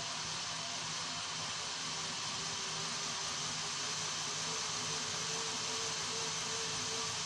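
Denford ORAC lathe running with a steady hiss and a faint whine; the whine settles slightly higher in pitch about halfway through.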